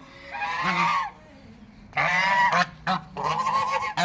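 Goose honking: three long, loud honks about a second apart, with a couple of short ones in between.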